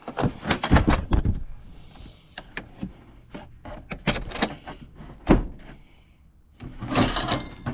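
Irregular knocks and clanks of hard objects being handled and set down, with a quiet gap about six seconds in.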